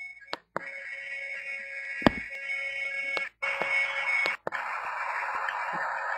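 Ringtone music playing, several short clips cut one into the next with three brief silent drop-outs between them, and a sharp click about two seconds in.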